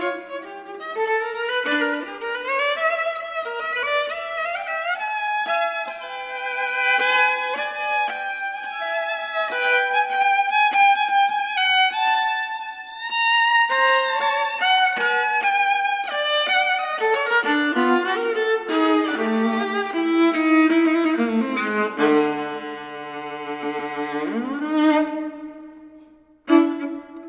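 Solo viola, bowed, playing a contemporary piece in a run of quick, shifting notes. About two-thirds of the way through comes a low held note near the bottom of the instrument, then a slide sweeping upward, a short break and a fresh start just before the end.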